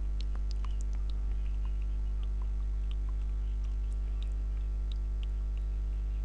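Steady low electrical hum in the recording, with faint, irregular clicks and ticks scattered over it.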